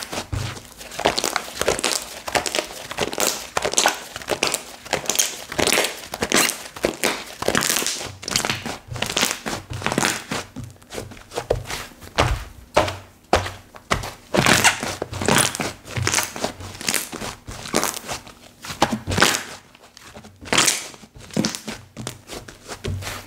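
Kokomo Slime slime being squeezed, pressed and stretched by hand, giving a dense, irregular run of sharp crackling and popping clicks.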